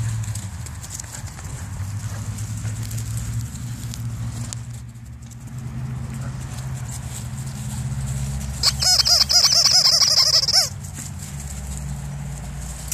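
A puppy giving a rapid run of high-pitched yelps for about two seconds, starting about two thirds of the way in, over a steady low rumble.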